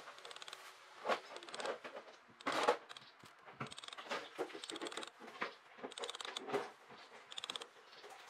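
A small hammer tapping a metal bolt down into moulding sand, light irregular taps about one or two a second, with short gritty rasps of sand between them as the impressions are stamped into the mould.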